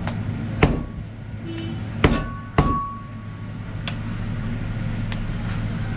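Cleaver chopping meat on a block: about five sharp, irregularly spaced blows, some followed by a brief metallic ring from the blade.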